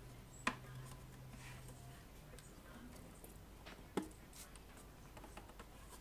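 Hand-work noises as a plastic amplifier case is handled and screwed shut with a screwdriver: two sharp clicks, about half a second in and again about four seconds in, with faint rustling and small taps between.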